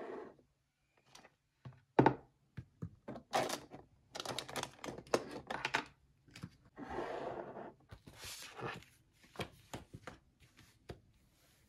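A run of knocks, clicks and short rustling noises from objects being handled in a small room, the loudest a sharp knock about two seconds in.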